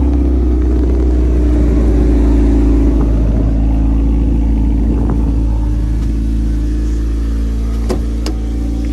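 A car engine running at a steady speed with a loud, unchanging low drone. Two sharp clicks come near the end.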